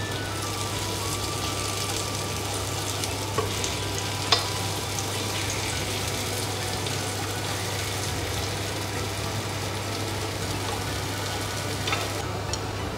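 Kabocha pumpkin dumplings (mashed pumpkin bound with potato starch) frying on low heat in a little oil in a nonstick pan, with a steady sizzle over a low steady hum. A few sharp clicks of wooden chopsticks touching the pan as the dumplings are turned, the loudest about four seconds in.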